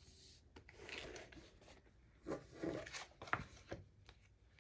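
Paper and plastic stationery packaging being handled, in short scraping rustles with a sharp click a little past three seconds in.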